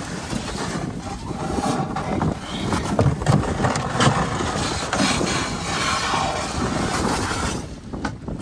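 A loaded canoe's hull scraping and grinding over rocks as it is pushed off the shore, with irregular knocks against the hull. The scraping stops near the end.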